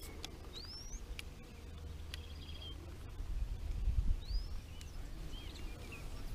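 Outdoor birds chirping: several short rising whistled calls and a brief trill, over a low rumble that swells about four seconds in. A few faint clicks come through as well.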